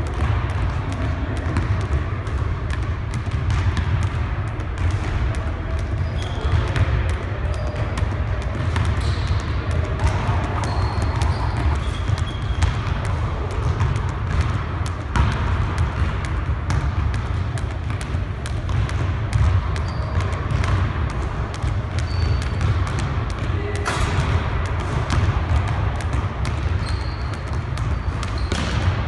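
Jump rope slapping a hardwood gym floor while sneakers land on it in a quick, steady rhythm, each turn a short knock.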